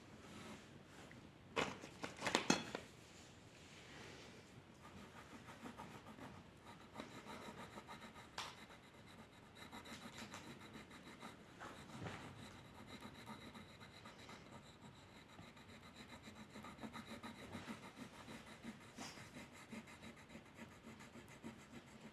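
Pencil strokes rubbing and scratching across paper in quick, uneven back-and-forth runs, faint throughout, with a few louder knocks about two seconds in.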